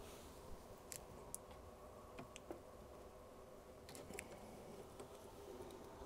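Near silence with a few faint, scattered clicks: small parts of a 3D printer's hot end handled by fingers as the heater cartridge is pushed fully into its heater block.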